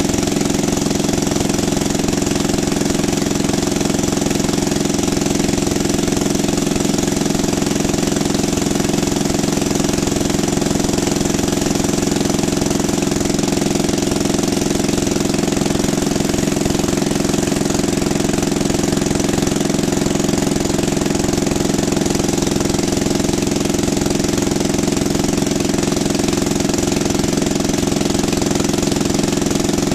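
Portable generator's small engine running on propane through an on-demand regulator, holding a steady speed with no change in pitch or level.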